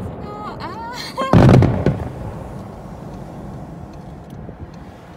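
Aerial fireworks bursting: a loud boom about a second and a half in, fading into a rumble.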